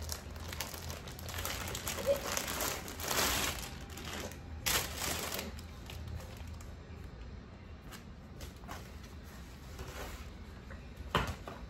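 Plastic packaging crinkling and rustling as it is handled, in several irregular bursts over the first five seconds. It then turns to quieter rustling, with one short sharp crinkle near the end.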